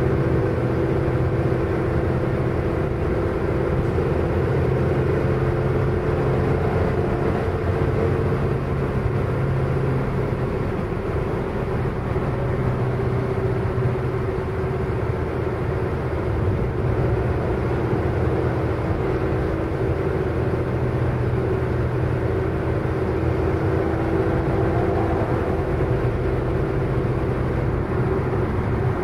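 Motor scooter running steadily while riding along, with continuous road and traffic noise.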